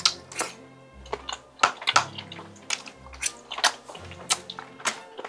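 Close-miked chewing of tteokbokki rice cakes: a run of irregular wet mouth clicks and smacks, over soft background music with held low notes.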